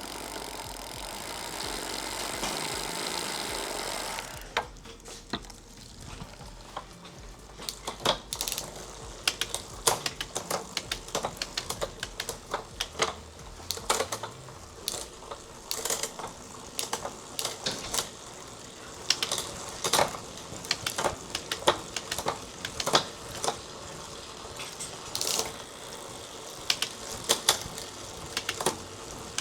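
Bicycle drivetrain worked by hand during a rear derailleur adjustment. The chain runs steadily through the gears for the first few seconds, then comes a long run of irregular sharp clicks and ticks from the chain, derailleur and freewheel ratchet.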